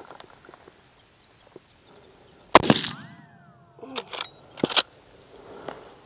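A single .45-70 rifle shot, a sharp crack about two and a half seconds in, is followed by a short falling whine. A few more sharp clicks and a second crack come a second or two later.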